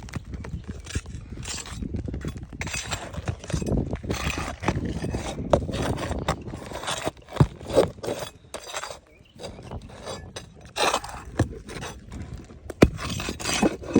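Hand tools scraping, knocking and clinking against asphalt roof shingles in irregular strokes, the work of loosening a damaged three-tab shingle for replacement.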